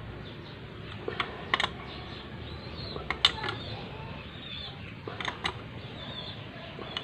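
Short metallic clicks and taps in a few small clusters from a hand wrench tightening the nuts on the two small cylinder-head studs of a Bajaj CT100 engine.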